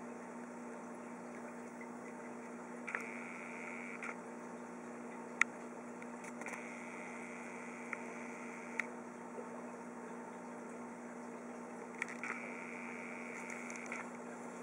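Steady hum of aquarium equipment with water bubbling from an air-bubble curtain. A higher hiss comes in three times for a second or two, with a few sharp clicks.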